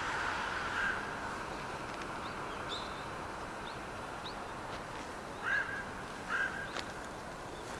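Crows cawing: two caws about a second apart at the start, then two short double caws near the end, over a steady background hiss. A few quick high chirps from small birds come in between.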